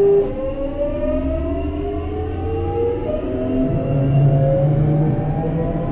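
Hitachi transitional-type GTO-VVVF inverter of a Sotetsu 8000 series electric train accelerating. A steady whine cuts off just after the start, then several tones rise together in a siren-like glide, jumping up a step about three seconds in, over the hum of the traction motors.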